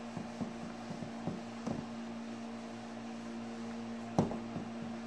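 Whiteboard eraser rubbing across the board in short strokes, with a sharper knock about four seconds in, over a steady background hum.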